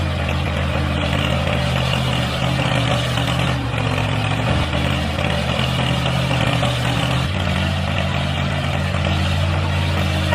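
Engine running steadily with a low hum, briefly dipping about four seconds in and shifting slightly near seven seconds.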